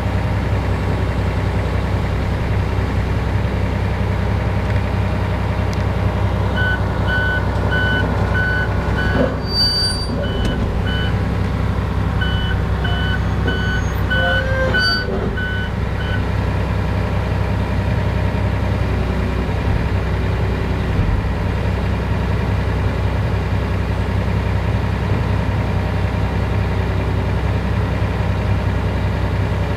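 Volvo EC460 excavator's diesel engine running steadily, heard from inside the cab. About six seconds in, a backup alarm starts beeping about twice a second, pauses briefly, then stops some ten seconds later.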